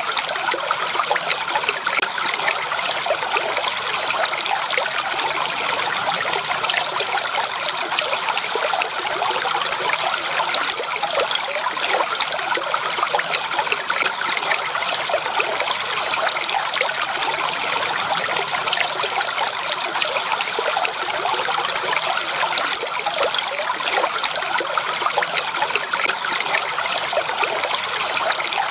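Stream water flowing and trickling over stones, a steady bubbling rush.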